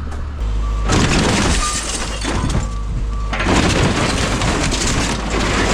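Caterpillar 306 excavator's diesel engine running under load, stepping up about half a second in, as the machine crushes into a single-wide mobile home: two long stretches of crunching and breaking, about a second in and again from about three and a half seconds.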